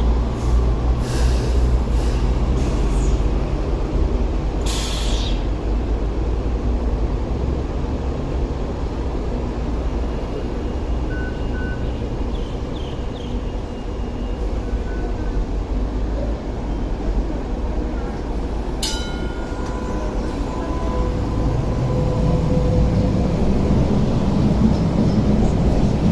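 Hong Kong Light Rail train standing at the platform with a steady low rumble from its onboard equipment, and short air hisses about one and five seconds in. Near the end it pulls away, and its motors rise in pitch and get louder as it accelerates.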